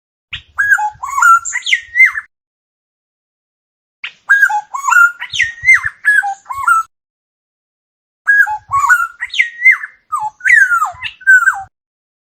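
Oriole song: three bouts of fluty, gliding whistles mixed with a few harsher notes, with silent pauses between the bouts.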